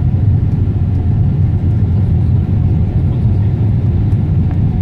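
Cabin noise inside a Boeing 777-300ER on approach: a loud, steady low rumble of its GE90 engines and the rushing airflow, heard from a window seat.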